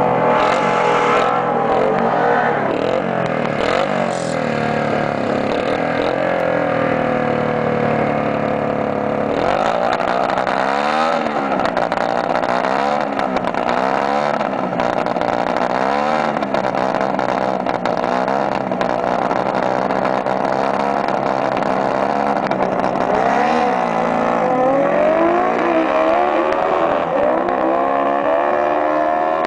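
Honda CB350 drag bike engine revved hard again and again at the start line, its pitch rising and falling with each blip. Near the end it climbs in long rising sweeps as the bike launches and pulls away down the quarter mile.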